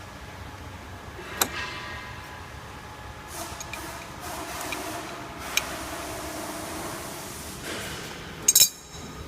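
Metal parts and tools clinking while a waterjet cutting head's on/off valve is taken apart by hand: a sharp click about a second and a half in, another near the middle, and a louder double clink near the end, over a steady background hum.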